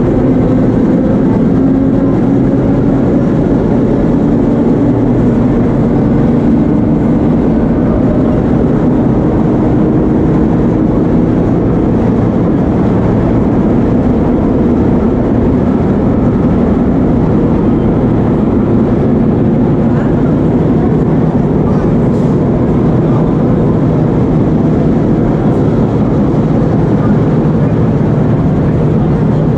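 Vintage 1930s BMT Standard subway car running, heard from inside the car: a loud, steady rumble from wheels on the rails, with a low hum.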